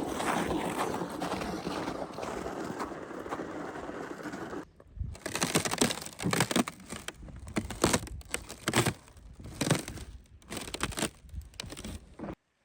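A steady rushing noise, then after a sudden break about a third of the way in, footsteps crunching through snow at a walking pace, a little more than one step a second.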